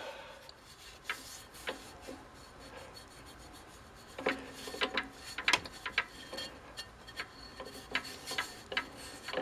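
Quiet handling sounds: fingers rubbing over the freshly turned braking surface of a Triumph motorcycle rear brake drum, the lathe stopped, with scattered light clicks and taps from about four seconds in.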